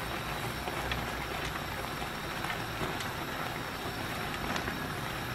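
Tteokbokki sauce simmering in a pan: a steady bubbling hiss with small scattered pops.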